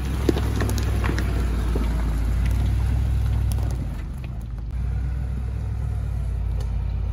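Range Rover P38 crawling down a rocky lane: a steady low engine rumble with scattered clicks and cracks from stones and twigs under the tyres. The rumble dips briefly about four seconds in.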